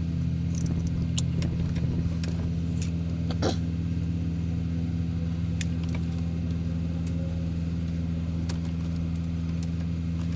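Steady low hum of the Freightliner Classic's diesel engine idling, with the newly replaced cab blower fan running. Scattered light clicks and rattles of wiring and connectors being handled sit on top.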